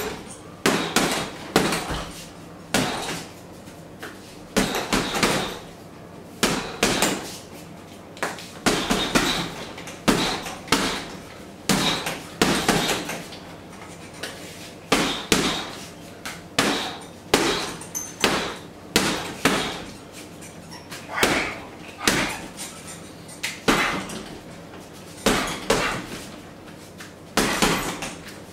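Boxing gloves punching a hanging heavy bag in quick combinations: clusters of two to four sharp thuds, a new flurry every second or two.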